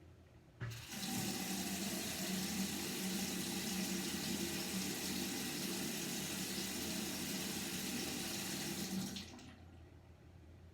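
An old sink faucet is turned on about half a second in, and water runs from the tap into the sink with a steady low pipe hum. It is shut off sharply about nine seconds in.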